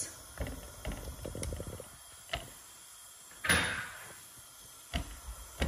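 A silicone spoon stirring grated onion and green chillies in an oiled non-stick kadai, which is being sautéed: soft scraping early on, then a few knocks of spoon and pan, the loudest about three and a half seconds in.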